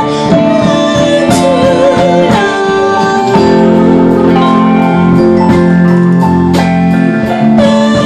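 Live band music: bowed cello, electric guitar, bass guitar and keyboard, with a woman singing. Strong held low notes come in about three seconds in.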